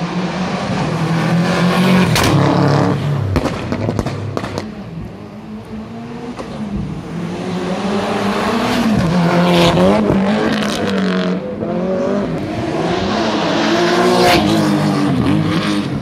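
Rally car engine revving hard as it comes through on a closed road, its pitch climbing and dropping again and again with gear changes and throttle lifts, with a few sharp cracks mixed in. It swells loudest near the middle and again toward the end.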